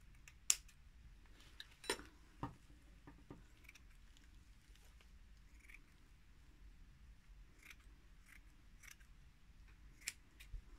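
Scissors cutting a sheet of polyester batting, a few sharp snips and clicks scattered with quiet between them.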